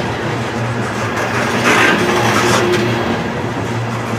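Freight train of open-top coal cars rolling past close by: steel wheels running on the rail in a steady rumble, with a brief louder clatter twice near the middle as sets of wheels pass.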